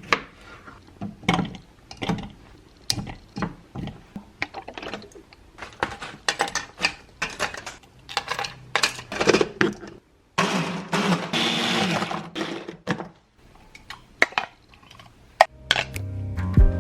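Kitchen clatter: scattered knocks and clinks of dishes and utensils being handled. About ten seconds in, a small appliance motor whirs steadily for a couple of seconds, then stops, and the clatter goes on.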